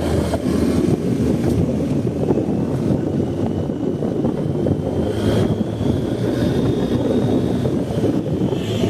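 BMW R 1250 GS boxer-twin engine running steadily while riding, with wind buffeting the microphone.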